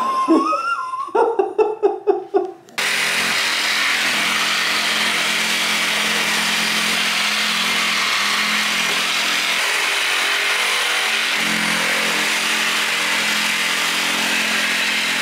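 A shop vacuum switches on about three seconds in and runs steadily: a loud, even rush of air over a constant motor hum.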